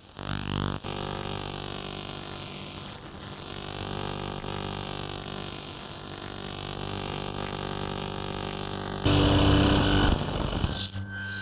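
A steady drone of several held tones, with higher tones slowly wavering up and down. About nine seconds in, a louder burst of harsh noise lasts around a second.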